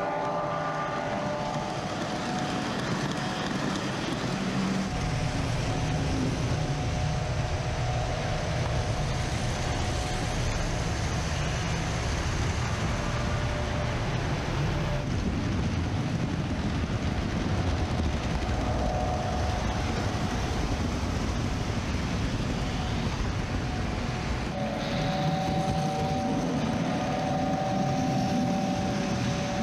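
Post-war O gauge toy trains running on tubular three-rail track: the steady rumble and clatter of wheels and motors. A held two-note tone sounds now and then, longest near the end.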